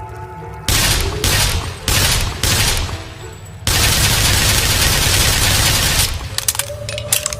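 Tommy gun (Thompson submachine gun) firing on full automatic. A short burst comes about a second in, then two more short bursts, then one long burst of about two and a half seconds, ending in a quick run of separate shots.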